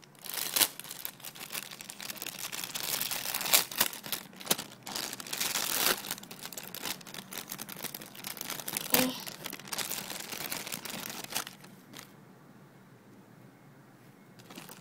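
Thin clear plastic bag crinkling and rustling with sharp crackles as it is opened and a squishy toy is pulled out; the crinkling stops a few seconds before the end.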